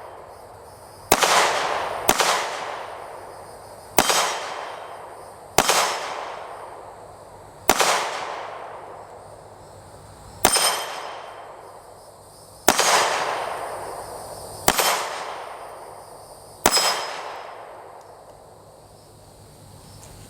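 Canik TP9 Elite SC 9mm pistol fired nine times at an uneven pace, one to three seconds apart, each shot trailing off in echo. Some hits are followed by a faint ring from the steel gong target.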